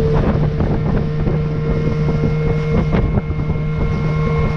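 Small boat's outboard motor running at a steady pitch across choppy water, with heavy wind buffeting the microphone and repeated short knocks as the hull meets the waves.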